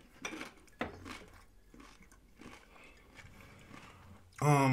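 Close-miked eating sounds of a person chewing a mouthful of taco, with a few crunches in the first second and then faint chewing. A short burst of voice comes near the end.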